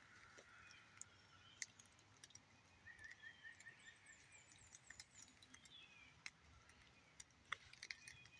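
Near silence in woodland with faint songbird calls: a short series of quick chirps about three seconds in and a thin high trill just after, with scattered soft clicks.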